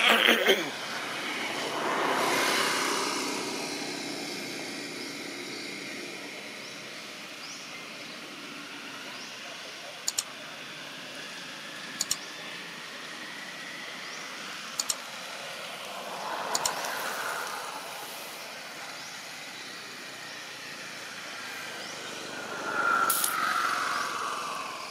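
Outdoor background with motor vehicles passing in the distance, swelling about two seconds in, again about two-thirds through and near the end. A few short sharp double clicks come in the middle.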